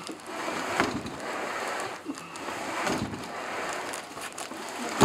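A heavy boxed gun safe being walked corner to corner across a wooden porch deck: scraping and shuffling with a few knocks of the box and its base on the boards, the sharpest knock at the end.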